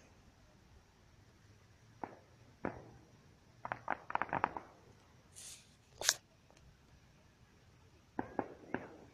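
Distant fireworks going off: scattered sharp pops, a quick run of cracks about four seconds in, a single sharper bang about six seconds in, and a few more pops near the end.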